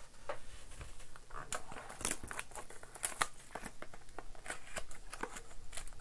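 A 2021 Topps Museum Collection foil card pack being opened by hand: irregular crinkling and tearing of the foil wrapper, then rustles and small clicks as the cardboard pack sleeve and cards are handled.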